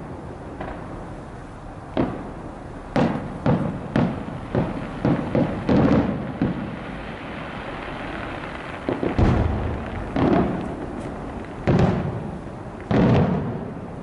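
Aerial fireworks going off in a rapid series of booming bangs, each followed by a long rumbling echo, with a short lull of crackling hiss about halfway through before another run of booms.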